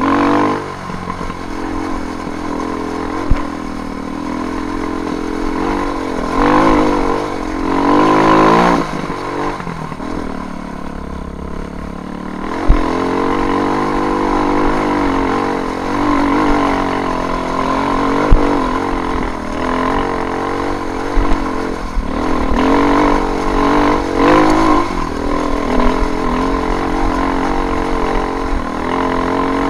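KTM off-road motorcycle engine running under load, its pitch rising and falling again and again with the throttle, with a few sharp knocks.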